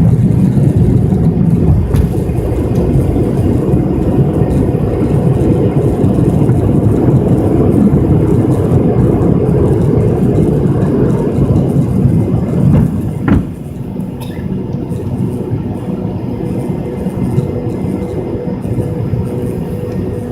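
MD-83 airliner's takeoff roll heard from inside the rear cabin, close to its tail-mounted Pratt & Whitney JT8D engines: a loud, rattling rumble of engines and wheels on the runway. About thirteen seconds in the rumble drops suddenly, as when the wheels leave the ground at liftoff, leaving a steadier engine and airflow noise.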